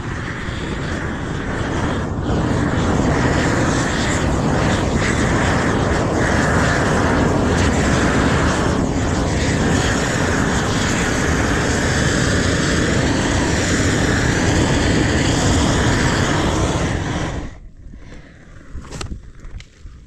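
Propane gas torch burning with a loud, steady rush of noise, the kind used to heat Izogam bitumen roofing membrane as it is laid; it shuts off abruptly about seventeen seconds in.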